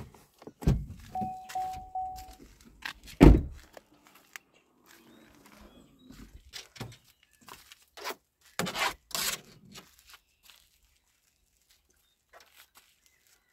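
SUV door handling: a knock, three short electronic beeps from the vehicle, then a heavy door-closing thunk about three seconds in. After it come scattered rustling and handling noises, with two louder rustling bursts past the middle, at the SUV's open rear hatch.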